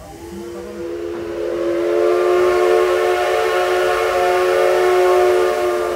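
Steam whistle of the C56 160 steam locomotive blown in one long blast of about six seconds, at a steady pitch. It swells over the first two seconds and cuts off just before the end.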